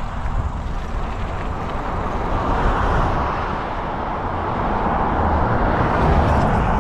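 Steady rush of wind and road noise on the microphone of a moving e-bike, with no distinct motor tone, swelling slightly a few seconds in and again near the end.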